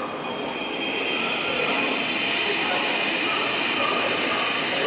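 Kobe Municipal Subway train running through the station, a steady dense rumble and rush that grows slightly louder about a second in, carrying a cluster of high steady whining tones.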